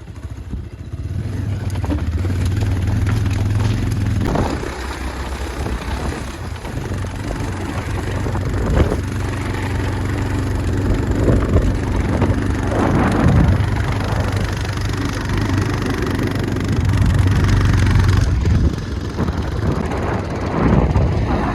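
Motorcycle engine running steadily while riding over a rough, stony dirt track, with a few knocks from the bumps.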